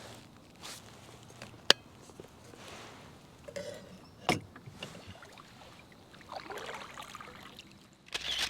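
Quiet kayak paddling: soft water sounds with a few sharp knocks, the loudest about a second and a half in and another a little past four seconds.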